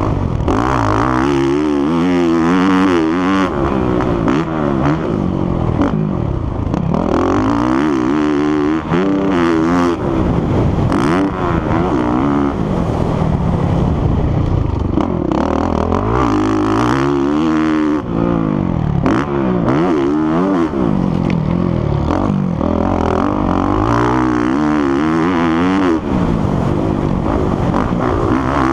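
Motocross dirt bike engine ridden hard around a dirt track, its pitch climbing and dropping over and over as the throttle is opened and shut, heard from a helmet-mounted camera.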